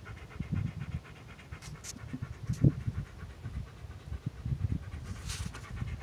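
A dog panting rapidly and evenly, close to the microphone, over low, irregular rumbling of wind buffeting the microphone.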